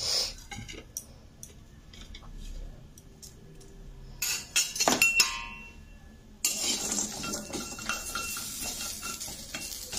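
Metal utensils clinking and knocking against a metal karahi holding whole spices, garlic and coconut, with a few louder ringing clinks about five seconds in. A steady hiss starts suddenly a little after six seconds.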